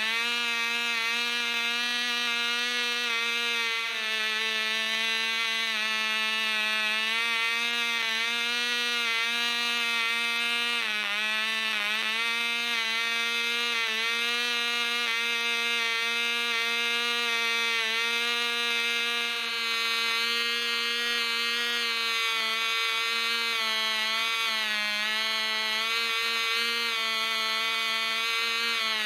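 Cox .049 Black Widow two-stroke glow engine running at full speed on a test stand, driving a 6x3 propeller, with a steady high-pitched note. Its speed sags briefly a few times, dipping in pitch and recovering: the slight hunting at top speed that the owner noticed and can't yet explain.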